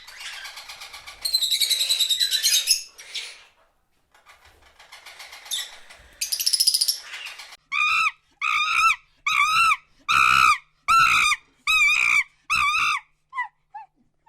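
Animal calls: high-pitched chirping and squeaking for the first half, then a series of about eight evenly spaced, clear pitched calls, each bending in pitch, that stop shortly before the end.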